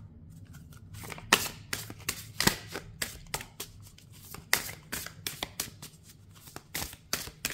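A deck of oracle cards being shuffled by hand: an irregular run of quick papery slaps and clicks as the cards are passed from hand to hand, starting about a second in.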